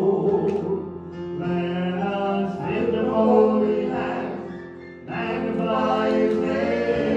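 Worship song: a man singing into a microphone over instrumental accompaniment, the phrase falling away about four seconds in and resuming about a second later.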